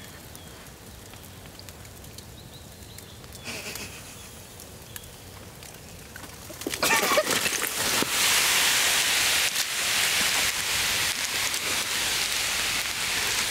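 Swedish torch log fire burning: faint crackle of the embers, then about seven seconds in a sudden loud hissing and crackling that goes on steadily.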